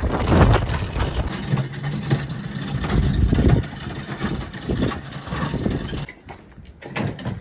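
Strong wind buffeting the microphone: a heavy, uneven low rumble that eases about six seconds in.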